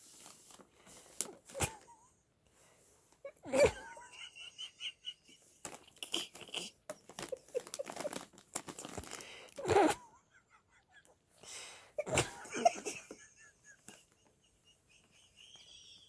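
Irregular wheezing sounds mixed with the crinkling of an empty snack bag, with louder wheezes about three and a half, ten and twelve seconds in.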